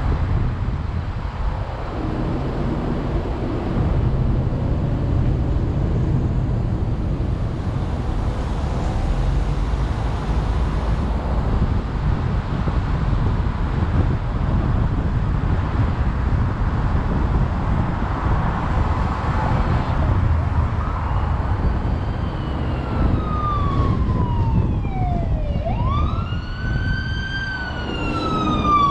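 Wind on the microphone and the rumble of a car driving. In the last seven seconds or so, an emergency siren wails: it falls, jumps back up and falls again, growing louder as a fire engine approaches.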